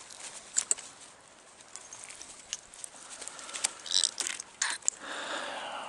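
Brown trout thrashing in a landing net: scattered taps and small splashes, with a short rush of splashing near the end.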